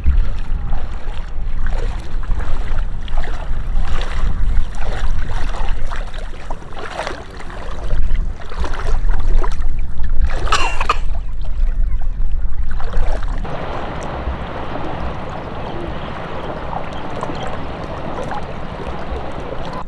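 Wind buffeting the microphone over shallow water lapping and splashing, with a heavy low rumble and irregular splashy bursts. About two-thirds of the way through it changes suddenly to a quieter, steady hiss of water and breeze.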